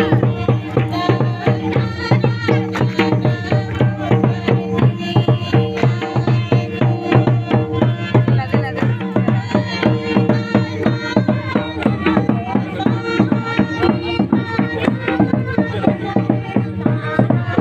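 Group singing a hymn to barrel hand drums beating a steady rhythm, over the held notes of a harmonium.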